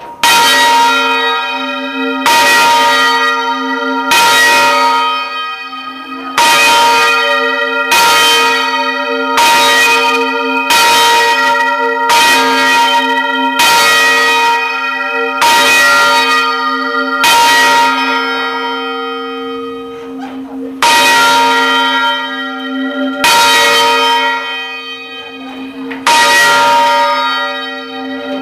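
Church bell rung full circle on its wheel, heard close up in the bell chamber: loud strikes roughly every one and a half to two seconds, each ringing on into a long hum that carries under the next.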